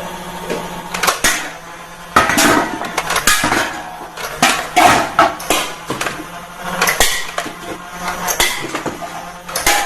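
Irregular clicks, knocks and clatter of hard plastic toy guns and their parts being handled.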